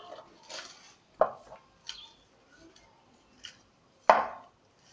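Metal tools and parts clinking and knocking, with two louder knocks, about a second in and near the end, and lighter clicks between.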